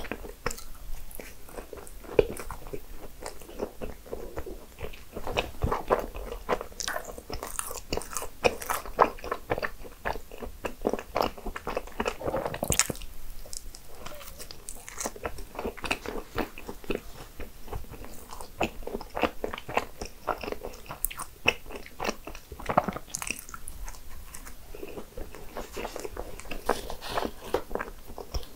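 A person biting and chewing desserts such as cupcakes and cream-filled choux pastries, with many short mouth clicks and bites throughout.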